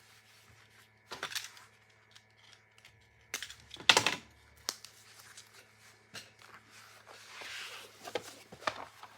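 Handling noises as a rubber-backed card-game playmat and its packaging are unwrapped and laid out: a few short rustles and knocks, the sharpest about four seconds in, and a softer rustle near the end.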